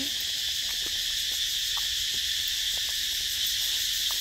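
Steady, high-pitched chorus of insects shrilling in the trees, with a few faint clicks.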